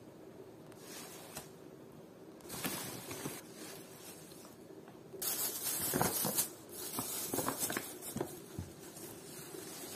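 Thin plastic shopping bags rustling and crinkling as a hand rummages through them, in irregular bursts starting about two and a half seconds in and louder from about five seconds on.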